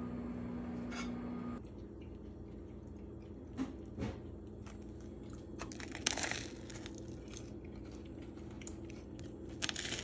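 A few faint crunches and clicks, like bites into a crusty toasted sandwich roll, the loudest about six seconds in. Under the start is a steady electrical hum that stops about a second and a half in.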